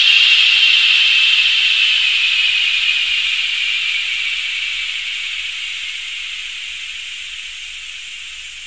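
A steady hiss centred high up, sinking slightly in pitch and fading away evenly, then cutting off abruptly at the end.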